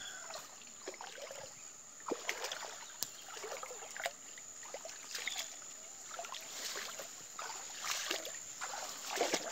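Irregular splashing and sloshing of legs wading through knee-deep muddy floodwater, with plant stems brushing and a few sharp snaps or clicks.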